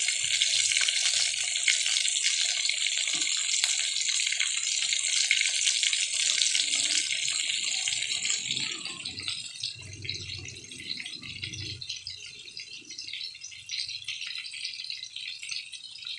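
Pork chops frying in hot oil in a pan: a steady, dense sizzle full of fine crackles. About eight seconds in, it drops to a much quieter crackle.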